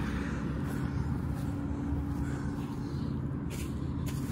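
An engine running steadily at idle, a constant low hum with a steady droning pitch. Two faint brief rustles come near the end.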